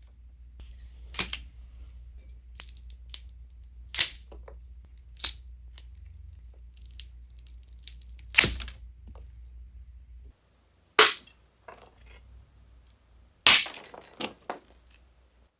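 A series of sharp foley cracks and snaps, about eleven, irregularly spaced, with the loudest near the middle and toward the end.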